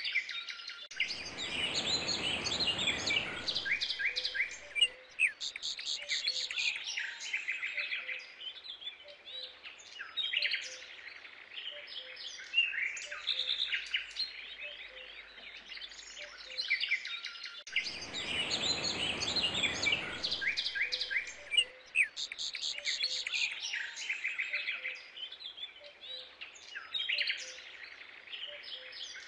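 Many small birds chirping and trilling continuously. A rushing noise lasting a few seconds comes twice, about 17 seconds apart, and the passage seems to repeat at that interval.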